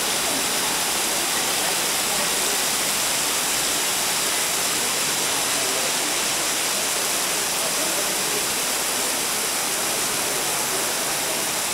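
Waterfall rushing steadily, a constant even hiss of falling water.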